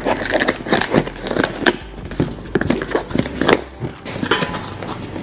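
A cardboard box being handled and opened by hand: irregular crackling, scraping and tapping of the cardboard flaps and the packing inside.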